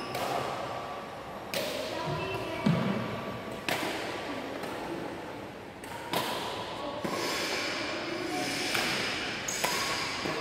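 Badminton rally: rackets striking a shuttlecock with sharp hits about a second or two apart, each echoing in a large hall, with faint voices and footsteps between them.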